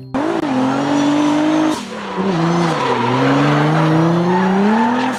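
Drift car sliding with its rear tyres spinning and squealing while the engine is held at high revs. The engine pitch holds, dips about two seconds in, then climbs slowly again.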